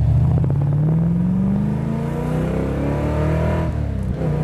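Holden V8 engine of an HDT VH Commodore Group 3, heard from inside the cabin, accelerating with its pitch rising steadily, then a brief drop near the end, as for a gear change.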